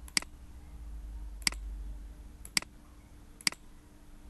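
Computer mouse button clicked four times, about a second apart, over a faint steady hum.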